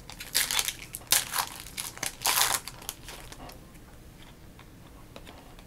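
Hockey card pack wrappers crinkling and tearing as packs are ripped open, in a quick run of crackly rustles over the first few seconds, then quieter handling of the packs and cards.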